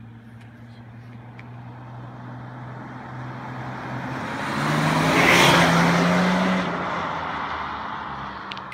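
BMW 525d (F10) with a tuned 3.0-litre straight-six turbodiesel and straight-piped exhaust, passing by under throttle with its DPF regenerating. The exhaust drone builds as the car approaches, steps up in pitch and is loudest about five and a half seconds in, then falls away as the car drives off.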